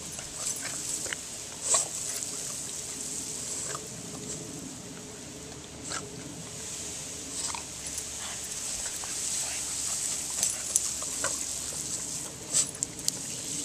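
A Boston Terrier snaps and bites at the spray of a lawn sprinkler, making short sharp sounds scattered through, loudest about two seconds in and near the end, over a steady hiss of spraying water.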